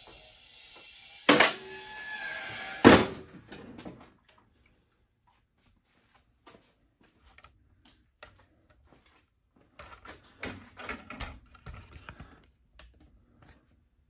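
Two loud thunks about a second and a half apart over a steady hiss, which stops about four seconds in; after that, scattered light clicks and knocks of handling.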